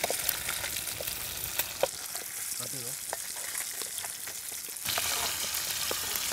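Masala-coated fish frying in oil in a pan over a wood fire: a steady sizzle with scattered small crackles and pops, louder from about five seconds in. The fish is partway through frying, its coating still moist and not yet dried to a crisp fry.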